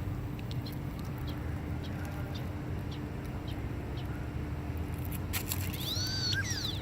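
Ducks making odd calls: scattered short ticking sounds, then about six seconds in a high whistled call that rises and falls, over a steady low hum.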